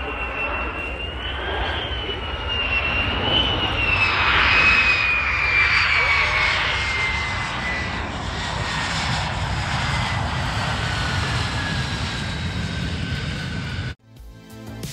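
Military fighter jet engine running on the runway: a high turbine whine over a heavy rush of jet noise, the whine slowly falling in pitch, loudest about four to five seconds in. It cuts off suddenly near the end.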